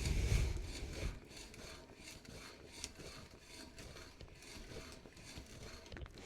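Wood and hand tools being handled on a workbench: a heavier knock in the first second, then light rubbing, scraping and small ticks.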